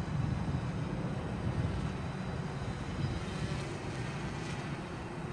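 Steady, low rumbling outdoor background noise with no clear tone.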